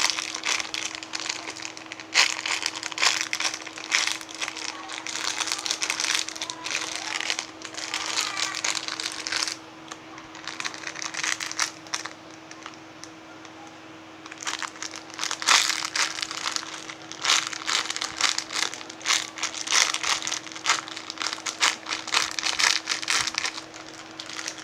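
Plastic wrapping crinkling and crackling in repeated bursts as squishy toys are handled, with a quieter pause a little before the middle. A faint steady hum sits underneath.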